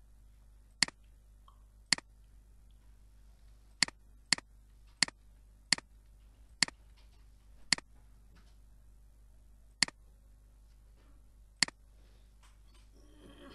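Computer mouse button clicking, about ten single sharp clicks at uneven intervals, some in quick pairs.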